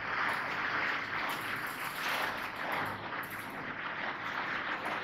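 Marker pen rubbing and scratching across a whiteboard in continuous strokes as words are written.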